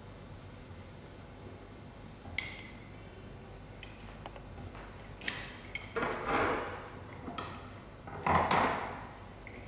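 Small metallic clicks and pings from the pointer and recording drum of a Hounsfield tensometer being set by hand, then two longer, louder handling sounds in the last few seconds.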